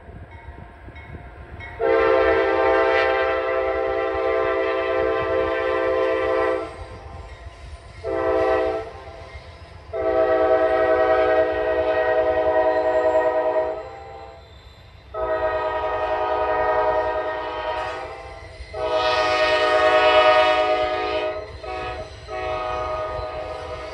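Norfolk Southern freight locomotive's multi-chime air horn sounding a long blast, one short blast about eight seconds in, then several more long blasts, over a low rumble from the approaching train.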